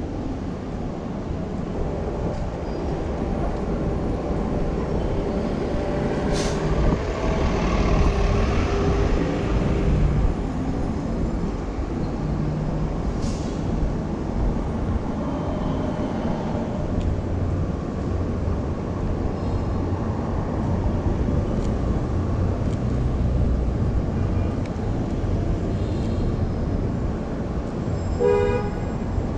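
City street traffic: a steady low rumble of passing vehicle engines, swelling louder from about six to ten seconds in, with a sharp hiss at the start of that swell. A short horn toot sounds near the end.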